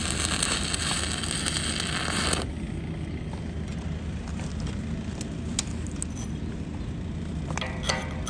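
Electric arc welding on a steel pipe: the arc's dense crackling hiss, which cuts off abruptly about two and a half seconds in. Near the end a chipping hammer starts knocking slag off the fresh weld bead with sharp, ringing metallic clinks.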